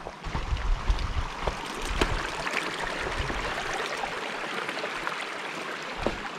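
Creek water flowing steadily over rocks, with a few short sharp ticks over it and a low rumble in the first couple of seconds.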